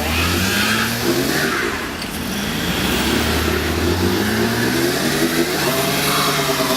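Car stuck in snow, its engine revving as it tries to pull free, the pitch climbing and dropping several times over a steady hiss.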